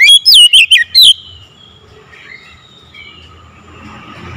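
Caged Oriental magpie-robin (kacer) calling loudly: a rapid run of clear whistled notes sliding up and down in pitch, which stops about a second in, leaving only faint background sounds.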